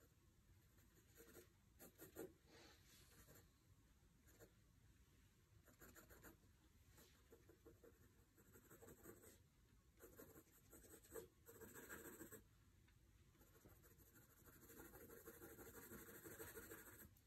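Pencil scratching faintly on sketchbook paper in short shading strokes, then a longer continuous stretch of scribbled shading near the end.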